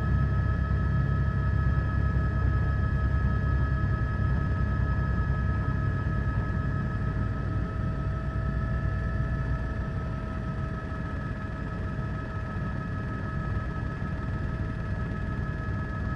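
Helicopter noise: a steady low rumble with a steady high whine over it. The rumble eases a little about four seconds in.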